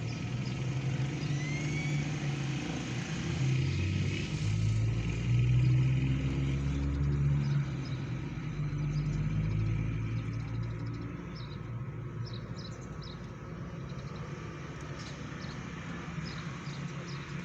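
A motor vehicle's engine running, swelling to its loudest about halfway through and then fading away, with small birds chirping in short high notes through the second half.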